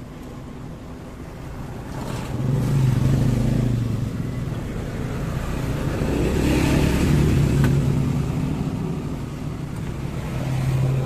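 Motor vehicle engines running past, a low hum that swells about two seconds in, again in the middle and once more near the end.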